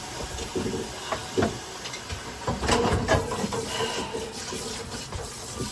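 Kitchen clatter: several knocks of dishes and utensils being handled, over a steady hiss.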